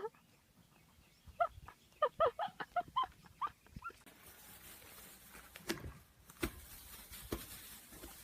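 A quick run of about ten short, high-pitched animal calls or yelps over about two seconds, followed by faint hiss with a few knocks.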